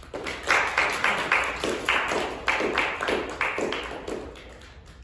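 A small audience applauding: a few people clapping, the distinct claps thinning and fading out after about four seconds.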